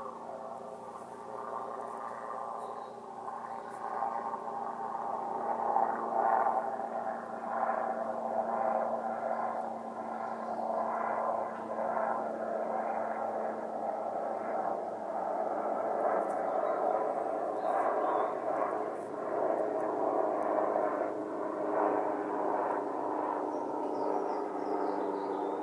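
Continuous droning noise from the sky: several steady tones held over a rushing hiss, sounding like a jet engine though no aircraft is in sight. It swells a little after the first few seconds and then holds.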